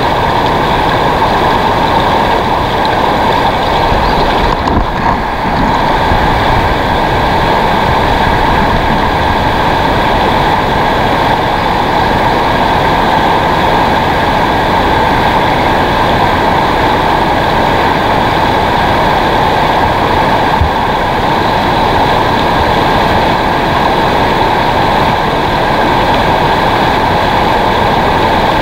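Fast river water rushing over rocks and through rapids, a loud steady rush.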